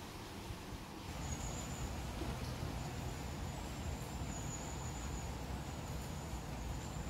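Outdoor background noise: a steady hiss with a low rumble that grows stronger about a second in, and a faint, thin, high tone coming and going.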